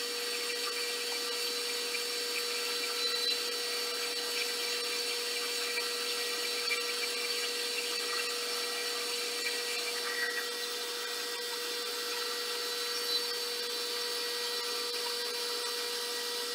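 Milling machine spindle running with a steady whine while an end mill takes a light skim cut across the top of a mini lathe carriage.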